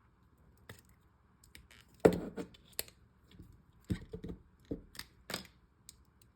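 Small metal clicks and knocks as a hex key is fitted through a balisong handle and a spacer is worked loose and pulled out: a handful of sharp taps, the loudest about two seconds in.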